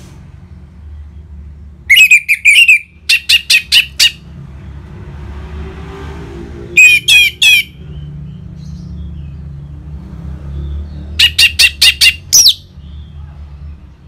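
Orange-headed thrush singing in short, loud phrases of quick sweeping notes: a burst about two seconds in followed by a run of five sharp notes, another short burst near the middle, and a fast series near the end that finishes on a rising note, all over a steady low hum.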